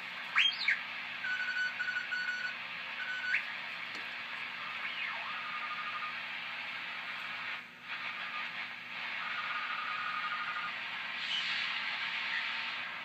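Trio 9R-59 tube shortwave receiver's loudspeaker output: a steady hiss of band noise with thin whistling tones that slide sharply in pitch as it is tuned across stations, then hold steady for a second or two at a time.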